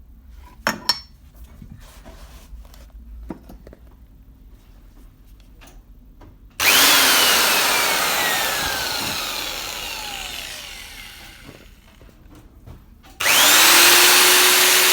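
Interskol drill-mixer's electric motor: a few handling clicks, then about six seconds in it is switched on and left to spin down, its whine falling slowly over several seconds. Near the end it starts again and runs at steady speed, a test run showing the tool works.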